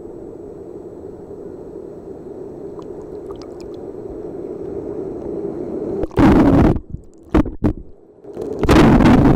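Sea water sloshing and breaking over a camera held at the surface. A low steady rush grows slowly louder, then loud splashes hit the microphone about six seconds in and again near the end as a wave breaks over it.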